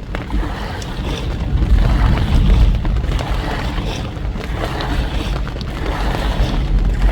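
Wind buffeting the microphone in rain: a heavy rumble that rises and falls in gusts over a steady rushing hiss.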